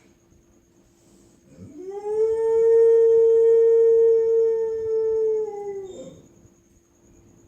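A dog howling in its sleep: one long howl about a second and a half in that swoops up, holds a steady pitch for about four seconds, and falls away at the end.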